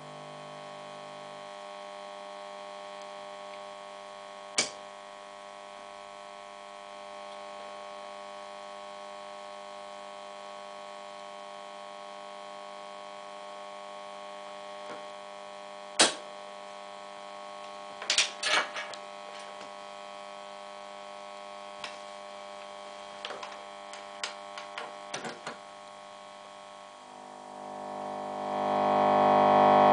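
Orange Rockerverb guitar amplifier hissing with a steady mains hum and buzz, the amp's noise problem, broken by a few sharp clicks and short crackles through the middle. Near the end a guitar is played through the amp and rings out loudly over the hum.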